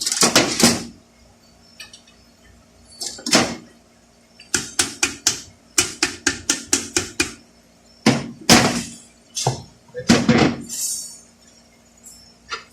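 Sharp metal clinks and taps of hand tools on a transmission part while the snap ring that locks the oil seal in a 6L80 transmission's pump is fitted. Separate knocks come a few seconds apart, with a run of about a dozen quick, even taps in the middle, about four a second.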